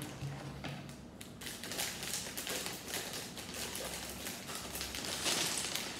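Sealed plastic Lego parts bags being handled and opened: a dense run of crinkling and small clicks from about a second and a half in.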